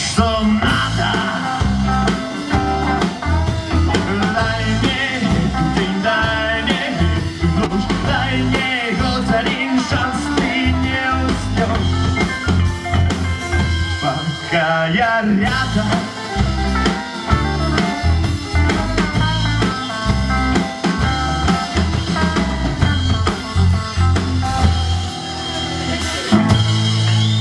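A rock band playing a song, with drum kit, guitar and singing. About 26 seconds in it settles on a held low chord.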